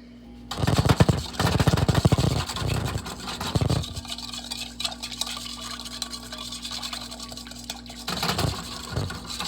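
A wire whisk beating seasonings together in a bowl, a fast run of rattling ticks against the bowl that starts about half a second in, louder in the first few seconds and again near the end.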